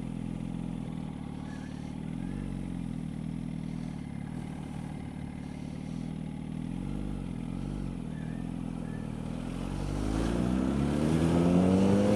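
2005 Yamaha R1's inline-four engine idling steadily, then from about ten seconds in rising in pitch and getting louder as the motorcycle accelerates.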